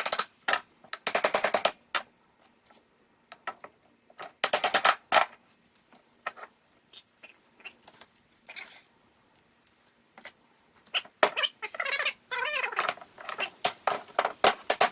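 Bursts of rapid metallic clicking and rattling with scattered single knocks, and a squeak a little before the end, as the transmission is worked out of a split two-stroke crankcase.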